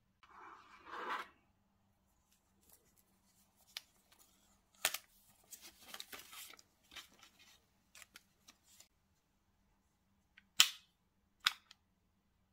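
Gloved hands handling tablet packaging and accessories. A short rustle comes first, then scattered light clicks and taps, and two sharp snaps near the end, the first of them the loudest.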